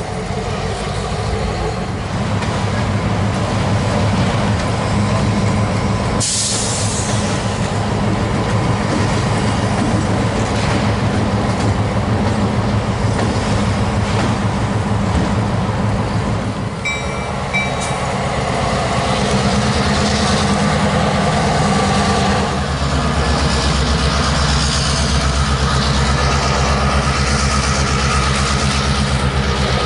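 Diesel-electric locomotive engines running as a train moves through the yard. A short sharp hiss comes about six seconds in. From about twenty-two seconds a deeper, heavier engine throb takes over.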